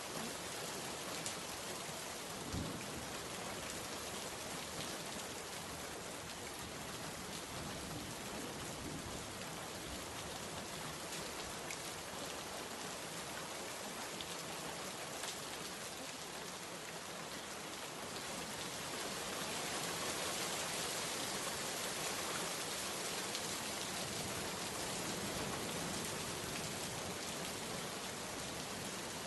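Steady rain falling, a dense even hiss with scattered drip ticks and a soft low thump a few seconds in. It grows somewhat louder past the middle and eases back near the end.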